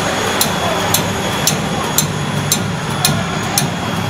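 Food-processing machinery running with a steady hum, and a sharp click about twice a second as the cutter chops the extruded dog chew rope into sticks.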